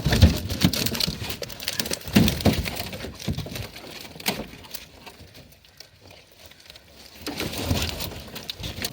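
Irregular slaps, thumps and splashing of a heavy catch of buffalo fish flopping in a hoop net and on the boat, louder early and again near the end.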